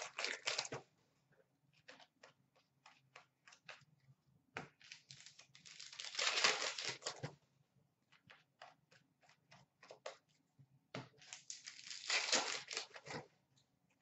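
Hockey card packs and cards being handled by hand: three stretches of crinkling and tearing wrapper and rustling card stock, with light clicks of cards flicked and set down between them.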